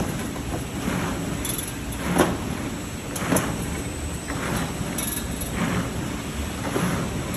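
Automatic carton box-packing machine running: a steady mechanical noise with a short knock repeating a little more than once a second as it cycles.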